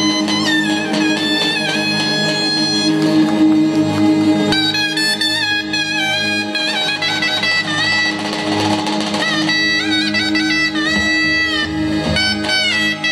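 Turkish zeybek folk music, instrumental: a reedy wind instrument plays an ornamented, bending melody over a steady low drone.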